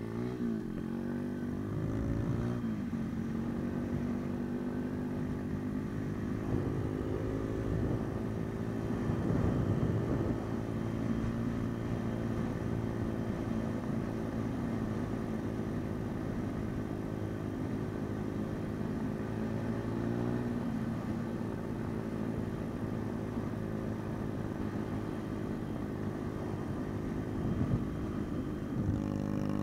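MRF 140 RC pit bike's single-cylinder four-stroke engine running steadily under way. The engine note drops and climbs again in the first couple of seconds and shifts again about twenty seconds in.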